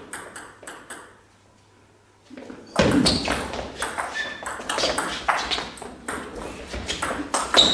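Table tennis ball clicking: a few clicks at the start, a pause of about a second and a half, then from about three seconds in a fast rally, the plastic ball clicking back and forth off the players' bats and the table in quick succession.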